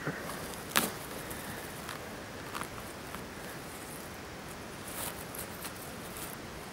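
Forest-floor litter of twigs and needles crackling as a hand works a porcini mushroom loose and pulls it from the ground, with a sharp snap about a second in and a few lighter clicks after, over a steady background hiss.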